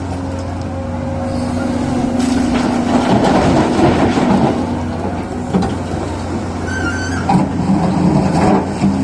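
Excavator's diesel engine running steadily while it works, with scattered knocks and a brief squeak near the end.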